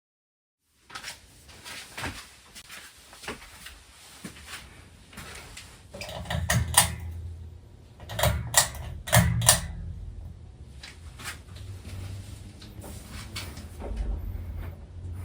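A series of sharp clicks and knocks, like objects being handled, thickest in a cluster of loud clicks about six to ten seconds in, over a low hum that sets in about six seconds in.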